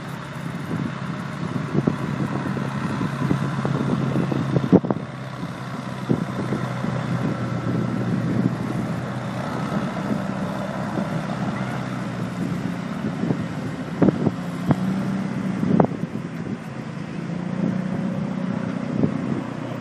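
Lifeboat launch tractor's diesel engine running steadily as it tows a lifeboat on its trailer across the sand, with wind buffeting the microphone and a few sharp knocks.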